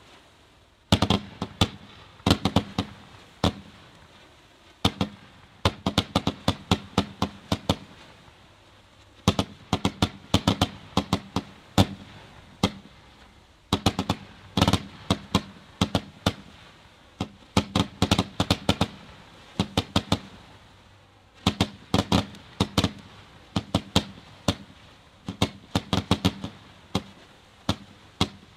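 Celtic Fireworks 'Wap' firework cake firing in quick volleys. Each volley is a rapid run of sharp bangs, with pauses of about a second or two between them.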